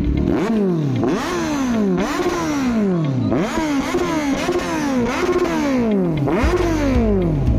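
Kawasaki Z1000 sport bike's inline-four engine being revved in a stationary sound check: repeated quick throttle blips, each one rising sharply and then dropping back, about every half second to a second.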